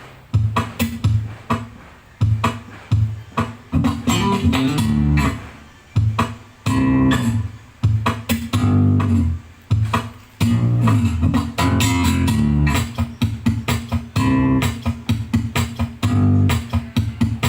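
Instrumental passage of a song with bass and guitar, played through a 12-inch MT-12A active speaker under test. Short, punchy bass notes separated by gaps give way to longer, fuller bass about four seconds in.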